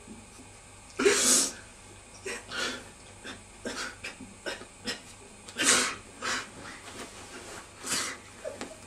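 A person's breathy exhalations: a few short puffs of breath, the strongest about a second in, just before six seconds and near eight seconds, with fainter ones between.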